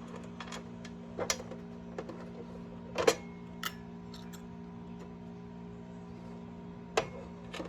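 Scattered small clicks and taps of screws and the scoring machine's case being handled while it is fitted back together, the loudest knock about three seconds in and another near the end, over a steady low hum.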